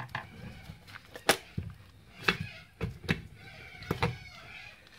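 A series of sharp clicks and knocks from small mower parts being handled and set down on a workbench, about seven in all, the loudest a little over a second in.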